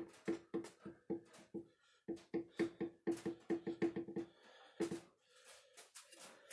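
Steel spindle shaft of a Fairbanks Ward RF-20 mill-drill being rocked by hand in its roller bearing, knocking with a short metallic ring about four to five times a second. The knocks come in two runs with a short pause about two seconds in, and one last knock near five seconds.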